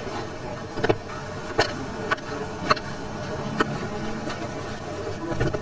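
Food-prep handling knocks: five or so sharp, short knocks at irregular spacing as a knife and cut fruit chunks are handled on a wooden cutting board and against a clear plastic tub, over a steady background noise.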